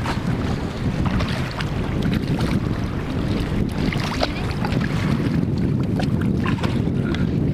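Steady wind rumble buffeting the microphone, with sea water lapping against the inflatable boat and a few brief faint knocks.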